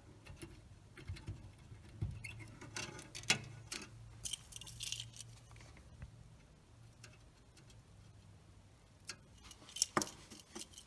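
Faint scattered clicks and scratches as wires, solder and a soldering iron are handled against a metal radio chassis, over a low steady hum; a sharper click comes near the end.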